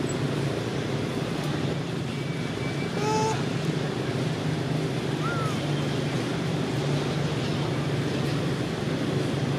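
Steady outdoor background noise with a low hum, like distant traffic. A single short, high squeaky call comes about three seconds in, and a faint chirp follows a couple of seconds later.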